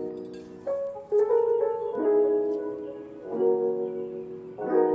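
Background music: soft piano chords, a new chord struck roughly every second and a half.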